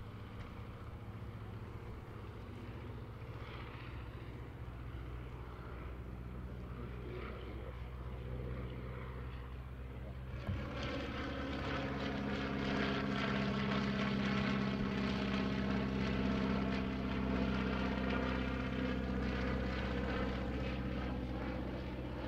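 Focke-Wulf Fw 44 J Stieglitz biplane's seven-cylinder Siemens-Halske Sh 14 radial engine and propeller droning steadily in flight. The drone grows louder and fuller from about ten seconds in as the plane comes nearer.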